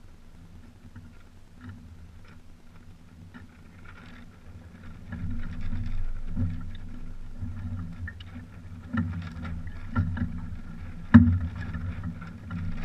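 Water washing and rumbling against a small trimaran's hulls, louder from about five seconds in, with scattered knocks and clunks of gear on deck as lines are handled and one sharp knock about eleven seconds in.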